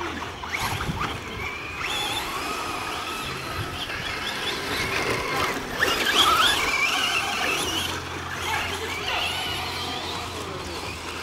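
Electric 1/10-scale RC race cars' motors whining, several overlapping, the pitch gliding up and down with throttle as they run the dirt track. The whine is loudest about six seconds in.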